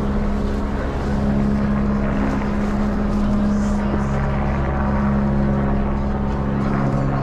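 A motor running steadily, a low even hum held on two pitches, over street background noise.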